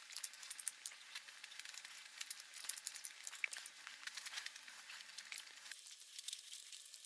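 Faint chewing of a mouthful of kimbap: many small crackling mouth clicks, thinning out about six seconds in.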